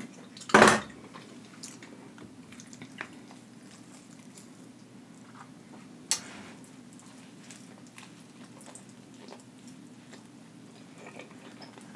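Close-up eating sounds of a person biting and chewing sauce-drenched rotisserie chicken. There is a loud wet mouth sound about half a second in and a sharper one about six seconds in, with faint chewing clicks between.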